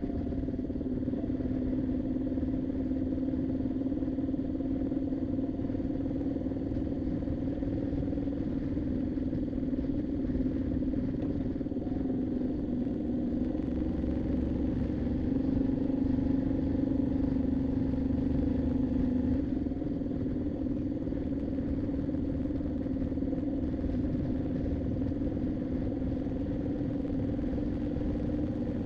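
Moto Guzzi V7's transverse V-twin engine running steadily at riding speed over a low rumble of wind and road noise. The engine note rises a little partway through, then settles back.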